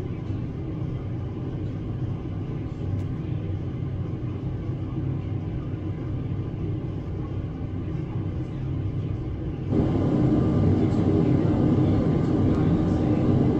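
Helicopter running with a steady low rumble, suddenly louder about ten seconds in.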